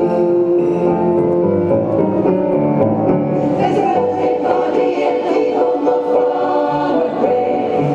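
Women's choir singing in several parts, holding chords that change every second or so.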